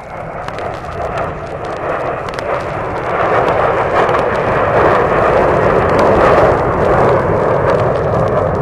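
Aircraft engine roar, swelling over the first few seconds and then holding steady. It is heard from an old vinyl LP, so record surface crackle and pops run through it.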